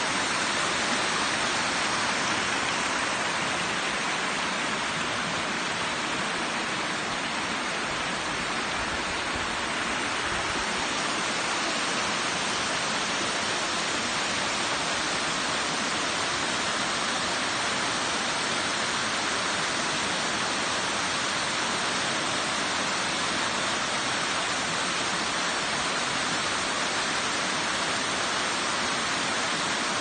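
Waterfall cascading down a rocky stepped face, a steady, even rush of white water.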